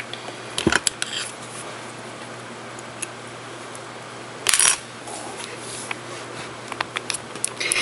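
Small clicks and knocks from a glass nail polish bottle and a plastic swatch stick being handled, with one louder short scuffing knock about four and a half seconds in. A steady low hum runs underneath.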